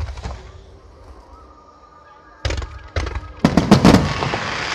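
Firework shells bursting. The echo of one big boom fades in the first second, then sharp bangs come about two and a half and three seconds in, and a rapid cluster of bangs follows near four seconds, trailing into a dense hiss and crackle.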